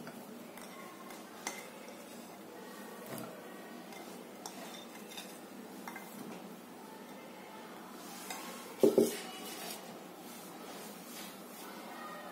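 Faint clinks and taps against a glass bowl as fruit pieces are arranged on a custard with a spatula, with a louder double knock about nine seconds in.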